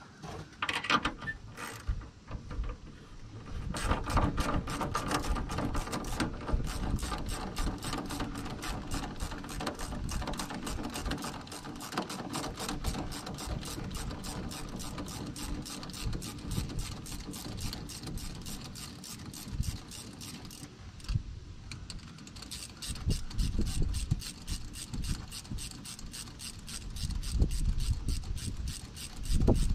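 Hand ratchet clicking in a long, even run of rapid clicks as a hose clamp on a truck's charge-air cooler hose is loosened, with a brief pause about two-thirds of the way through.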